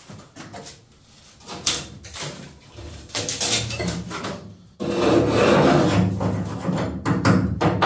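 A metal tool tapping and scraping along the rusty steel windshield frame of a Datsun 280Z body shell, sounding it out for rust-through. There are scattered knocks at first, a steady scrape of about two seconds starting just before the midpoint, then a quick run of taps near the end. The metal sounds solid.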